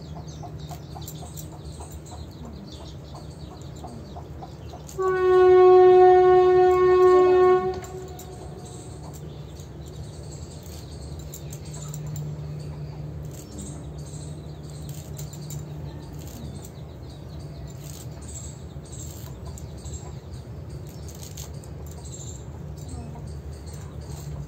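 A loud, steady horn-like tone with many overtones sounds once, for about three seconds, starting about five seconds in, over a low steady hum. Around it are faint, scattered rustles and snaps of moringa leaves being stripped from their stems by hand.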